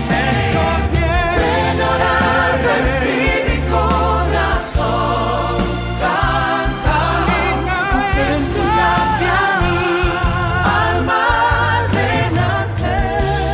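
Background music: a Christian worship song with sung, wavering vocals and choir-like backing over a steady bass.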